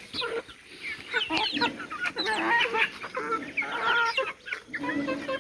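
A flock of local chickens clucking, many short overlapping calls one after another.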